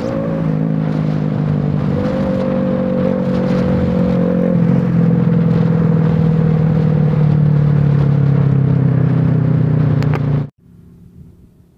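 Bored-up 147cc Honda XRM underbone motorcycle's single-cylinder four-stroke engine, geared with a 14/34 high-speed sprocket, running hard at high road speed with a nearly constant engine note. It gets a little louder about halfway through and cuts off abruptly near the end.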